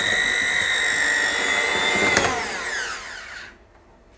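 Moulinex electric hand mixer with metal whisk beaters whisking eggs and sugar: a steady high motor whine. It is switched off about two seconds in and its pitch falls as it spins down.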